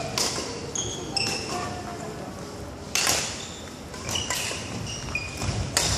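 Badminton rally: sharp racket hits on the shuttlecock about every one to two seconds, the loudest about three seconds in, mixed with short high squeaks of court shoes on the wooden floor, echoing in the hall.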